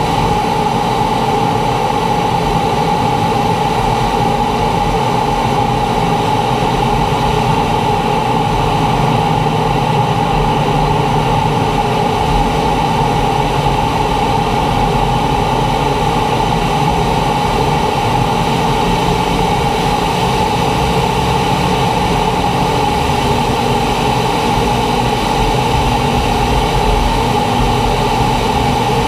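T-45 Goshawk's Rolls-Royce Turbomeca Adour turbofan and airflow in flight, a loud steady drone with a constant whine over it.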